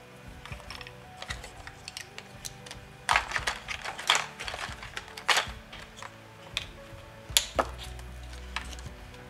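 Scattered light taps and clicks with a few short brushing scrapes, from paper-crafting materials being handled on a work table, over soft background music.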